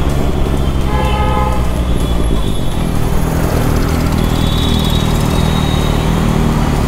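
Kawasaki Ninja ZX-6R's inline-four engine running steadily at low speed in city traffic. A vehicle horn honks briefly about a second in, and a higher-pitched horn toots around the middle.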